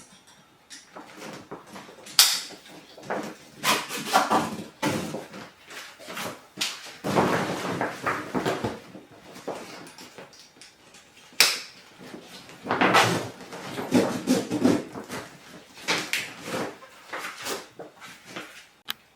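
Handling of a large roll-top dry duffel bag: the rolled ends being clipped in with sharp plastic buckle clicks, loudest about two seconds in and again near the middle, amid rustling and scraping of the stiff bag fabric and straps.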